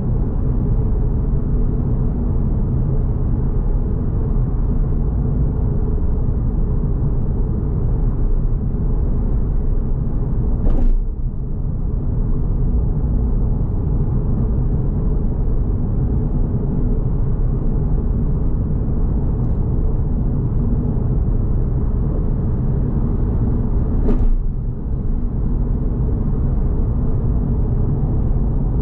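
Suzuki Swift Sport ZC32S with its 1.6-litre M16A four-cylinder engine, engine and tyre noise heard inside the car as a steady low rumble while driving on a highway. Two short thumps come through, about eleven and about twenty-four seconds in, each followed by a brief dip in level.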